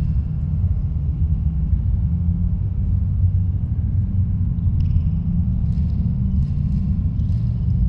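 Wind buffeting the microphone, a steady rough low rumble that rises and falls irregularly. A few faint high-pitched chirps come in about five seconds in.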